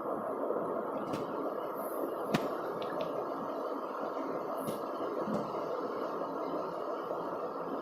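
Steady background noise in a room, with a faint click about two and a half seconds in.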